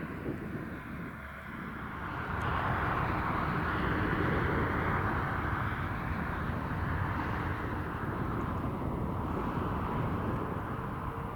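Jet engine noise from a Boeing 747-400 freighter's four engines: a steady rumble and roar that swells about two seconds in and then holds.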